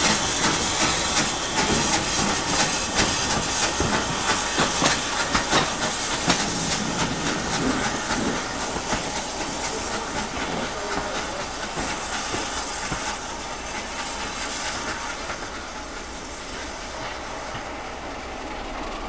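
Steam locomotive working a train, with loud steam hissing and short clicks and clatter from the wheels and rail joints. It fades steadily as the train draws away.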